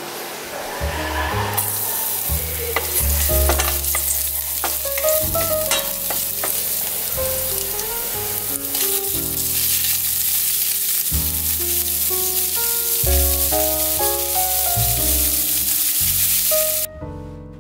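Hot oil sizzling in a nonstick wok as garlic and sliced pig's heart are stir-fried, with scattered clicks of stirring. The sizzle swells about a second and a half in and cuts off suddenly near the end. Soft piano music plays underneath.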